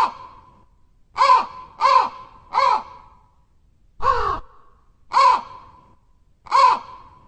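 A crow cawing: seven short, harsh caws at uneven spacing, three of them in quick succession about a second in. One caw, about four seconds in, is longer and lower than the others.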